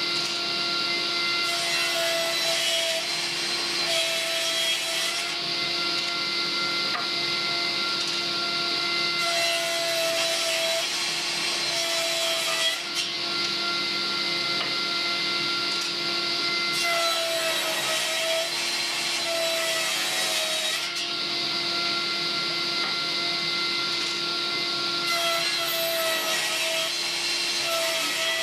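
Table saw running steadily with its motor hum, its blade ripping through glued-up wooden strips four times. Each cut is a rush of high rasping noise lasting a few seconds, and the motor's tone dips slightly under the load of each cut.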